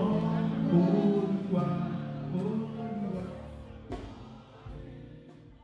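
Yoruba church collection song with singing and instruments, fading away with held notes. A single sharp knock about four seconds in.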